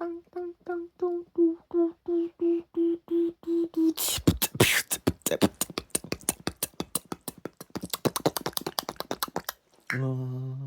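A person's voice making beatbox-like mouth sounds: a short pitched syllable repeated about three times a second, then from about four seconds in a fast run of sharp percussive clicks and breaths, and near the end a low held hum.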